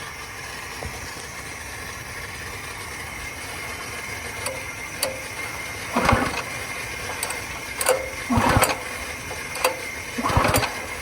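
Honda GX200 engine on a pressure washer being pull-started: three short recoil pulls about two seconds apart, each turning the engine over briefly without it catching. It won't fire despite good spark and fresh fuel.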